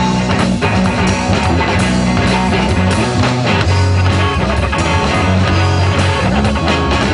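Live rock trio of electric guitar, bass guitar and drum kit playing a steady groove in an instrumental stretch of the song, with no singing.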